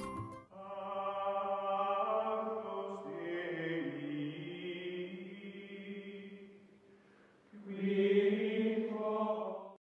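Outro music: a choir-like chanted chord of long held voices. It swells in twice, fading almost away in between, and the second swell cuts off abruptly near the end.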